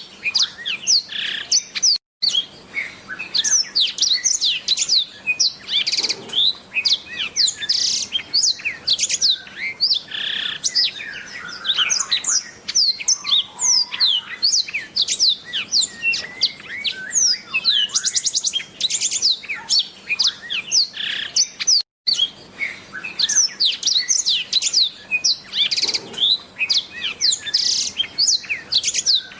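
Black-throated canary (blackthroat) singing a long, continuous, fast twittering song of rapid high chirps and trills. The song cuts out for an instant twice, about two seconds in and again about twenty-two seconds in.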